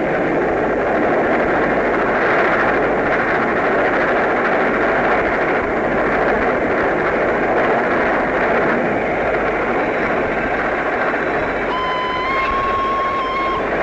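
Steam locomotive and train running at speed, a steady loud rushing rumble, on an old reel-to-reel tape recording. About twelve seconds in, a whistle sounds once for a second or so.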